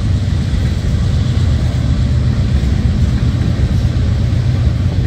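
A steady, loud low rumble with no distinct events.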